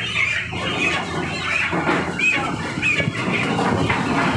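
Many broiler chickens squawking and squealing, shrill overlapping calls from birds being caught and carried by the legs.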